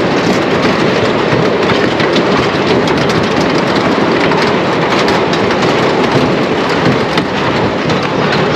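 Hugo Haase/Erich Heidrich 1932 wooden scenic railway coaster train rolling along its track: a loud, steady rumble of wheels on the rails with scattered sharp clicks.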